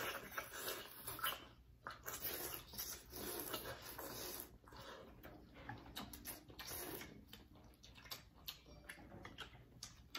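Close-up slurping of bún bò Huế rice noodles and broth with chewing, in short irregular bursts, with light clicks of chopsticks and spoons against bowls.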